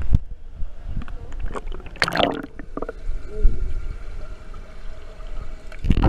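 Water sloshing and gurgling around a GoPro held at the water's surface, with a brief louder burst of splashing about two seconds in.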